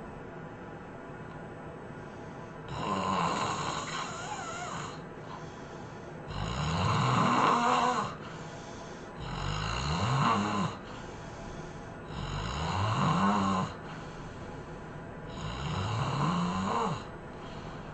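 A sleeping person snoring heavily: five loud snores about every three seconds, each wavering in pitch, with quieter breaths between them.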